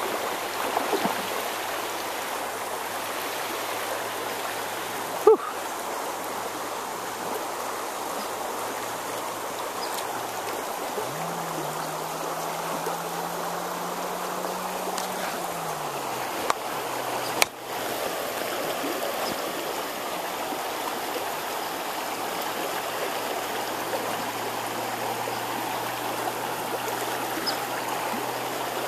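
Shallow stream water running steadily over rocks, a constant rushing. Two sharp knocks come about five seconds in and again near the middle.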